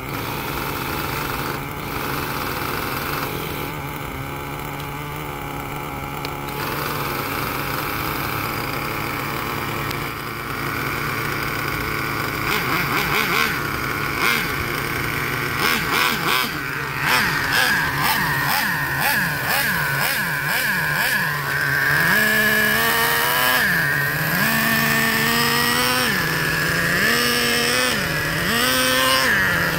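Small nitro (glow-fuel) RC car engine during break-in: it hums steadily at first, with clicking and rattling in the middle, then from about two-thirds of the way in it revs up and drops back again and again in short throttle blips.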